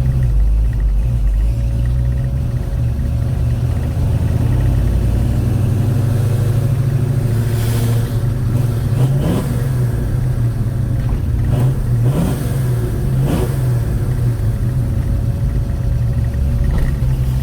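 A Chevrolet 307 small-block V8 running on the road in a 1956 Chevy Bel Air, revving up briefly twice, about nine and twelve seconds in. The valve train is audible, and the driver takes it to need the valves tightened up a little.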